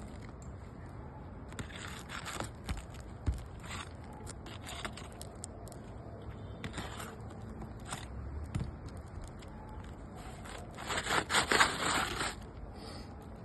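Asphalt roof shingle being pried loose and pulled out, scraping and crackling in short bursts, loudest near the end.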